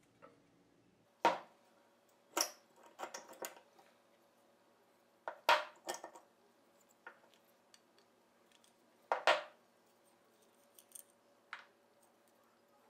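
Steel parts of a vintage Stanley No. 3 corrugated-bottom bench plane clinking and knocking against its cast-iron body and the wooden bench as the plane is taken apart: separate sharp clinks a second or a few seconds apart, some in quick clusters.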